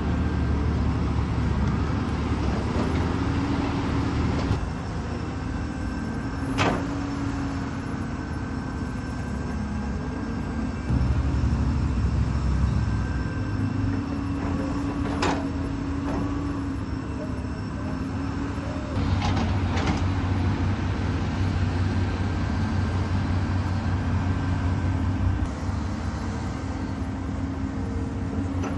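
Caterpillar 320D hydraulic excavator working: the diesel engine and hydraulics run steadily and swell louder several times as the machine takes load. A few sharp single clanks are heard.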